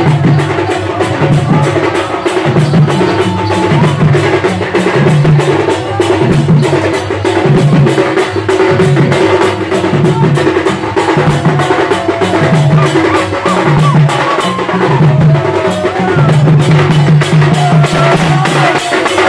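Loud festival drumming for a procession dance: dense, rapid drum strokes over a deeper drum beat repeating steadily, a bit faster than once a second.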